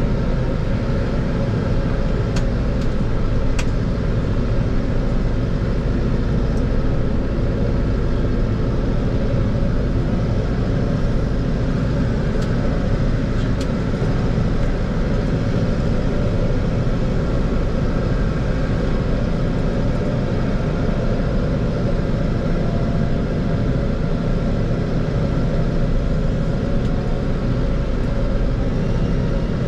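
Fendt 412 Vario tractor's diesel engine running steadily under load, heard from inside the cab, as the tractor pushes and spreads grass silage on the bunker with a front silage distributor. A few faint clicks sound in the first few seconds and again around the middle.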